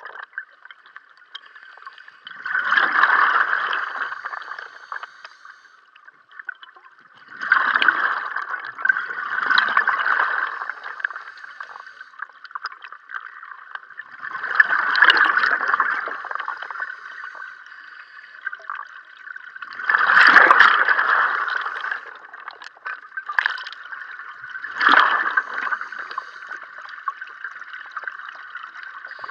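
A scuba diver's exhaled breath leaving the regulator as a rush of bubbles underwater. It repeats about every five seconds, once per breath out, with quieter stretches between.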